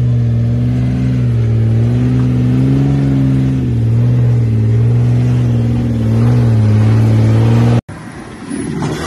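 Modified Jeep's engine working hard under load as it climbs a steep rock slope, its pitch rising and falling a little with the throttle. It cuts off suddenly near the end, giving way to a quieter engine sound from a rock-crawler buggy.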